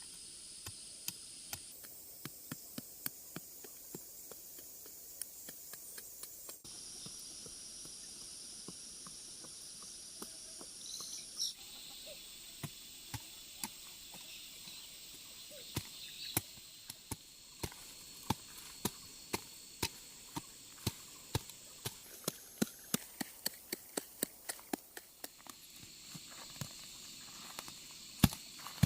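Insects trilling steadily in a high-pitched chorus that shifts abruptly several times. Over it comes a string of short, sharp knocks or taps, spaced out at first and coming quicker and louder in the second half.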